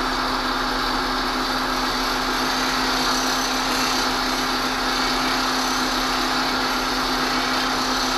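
Bench grinder running with a steel plane iron held against its grinding wheel: a steady motor hum under an even hiss of the edge being ground, as the blackened flat on the damaged edge is ground down and sparks come off the top.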